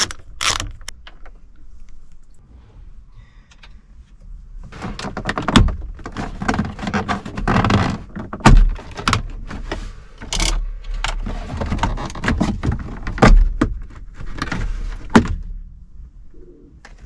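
Plastic centre dash surround trim of a Smart Fortwo 451 being pulled off: a few clicks at the start, then from about five seconds in a long run of clicks, knocks and rattles, with several loud snaps as the clips let go.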